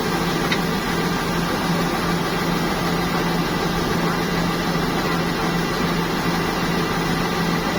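Heavy farm machinery engine running steadily with a constant low hum under a wash of mechanical noise.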